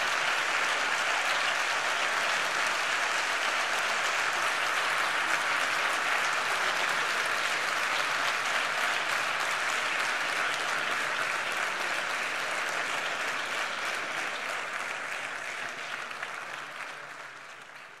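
Audience applauding steadily, fading away over the last few seconds.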